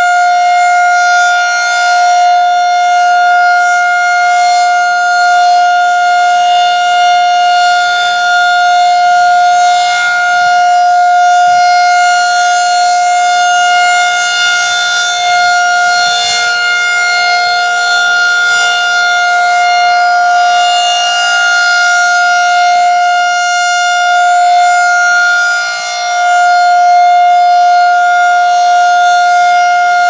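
Federal Signal 2001-SRN electronic outdoor warning siren sounding a steady, unwavering tone during a monthly test. Its loudness swells and fades slightly as the rotating horn sweeps round.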